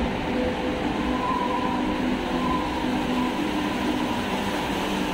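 A vehicle running steadily: a loud, even rumble with several steady humming tones over it.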